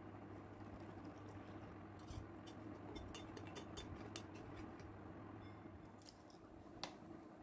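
Metal spoon stirring yeast and sugar into a little water in a stainless-steel mug: a quick run of light clinks against the mug's side for a couple of seconds, starting about two seconds in, over a low steady hum. One sharper click near the end.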